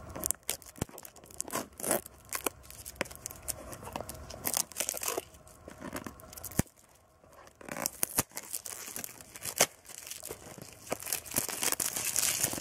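Thin plastic film wrapper being torn open and peeled off a cardboard tea box, crinkling and crackling in irregular bursts.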